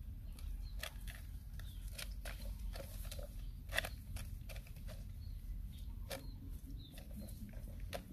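Puppies eating from a plastic dish: irregular clicks and smacks of chewing and licking, with one sharper click about four seconds in, over a low steady rumble.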